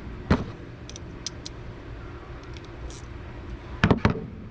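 Metal hand tools being handled while a battery fastener is tightened down: a sharp knock, a few light clicks, then two loud clunks close together near the end.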